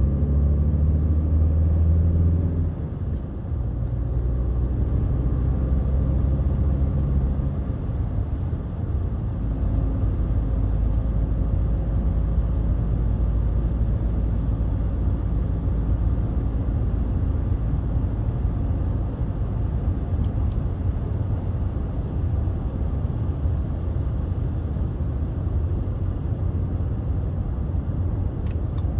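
BMW 320d's 2.0-litre four-cylinder turbodiesel pulling steadily while driving, with a short dip in level about three seconds in. From about seven seconds the engine note fades and a steady low road and tyre rumble takes over.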